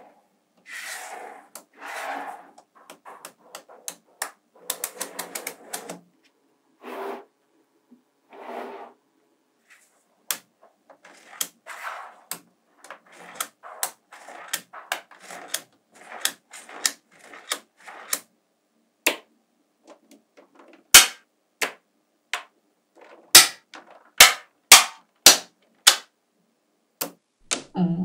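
Small magnetic balls clicking and snapping together as strips of them are laid against a growing sheet. Irregular sharp clicks throughout, with softer rattling stretches in the first third and the loudest snaps in the second half.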